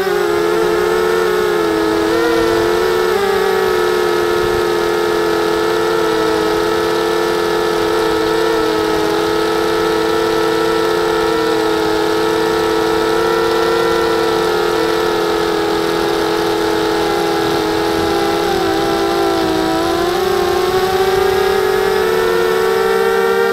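Brushless motors and propellers of a 250-size FPV racing quadcopter whining steadily in flight, the pitch sagging briefly a couple of times and climbing again near the end.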